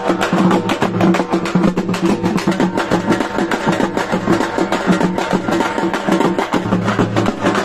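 Music carried by fast, dense drumming.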